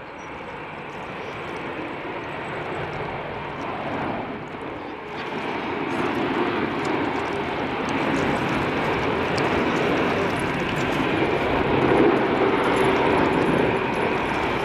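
Jet airliner's engines, a steady rushing rumble that grows gradually louder across the whole stretch as the aircraft comes closer.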